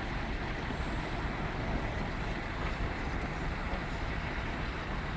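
Steady traffic noise from a nearby expressway and car park, an even rush with a low rumble underneath and no distinct events.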